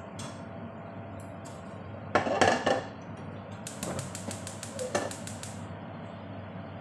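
A non-stick frying pan is set down on a gas hob's metal grate with a clatter of knocks about two seconds in. This is followed by a quick run of even, sharp clicks, about six a second for two seconds, over a steady low hiss.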